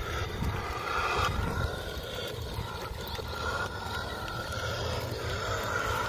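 Toy RC monster truck's electric motor whining in short spurts as it is driven, starting and stopping several times, over a low rumble.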